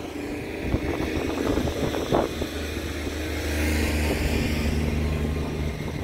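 Tour bus engine running, a steady low hum that swells after about a second and eases off near the end.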